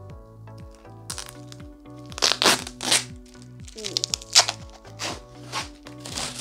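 Crackling and crinkling of plastic wrapping and a small cardboard box being handled and opened, a run of short rough bursts beginning about a second in, the loudest about four seconds in. Background music with a steady beat plays underneath.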